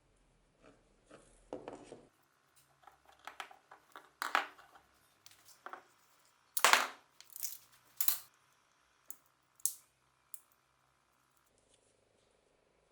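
An irregular run of short scrapes, clicks and knocks from hand work on the small metal parts of an old powder-actuated nail gun, the loudest about two-thirds of the way through.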